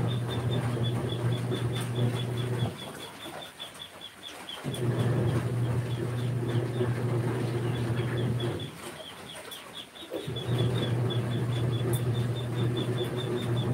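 Twin-tub washing machine's wash motor running in stretches of about four seconds with short pauses between, the pulsator churning the clothes and changing direction at each pause. A rapid high chirping runs through it.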